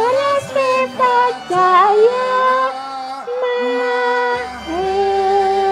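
Woman singing a slow song over backing music, her voice sliding between notes without clear words, then holding one long note near the end.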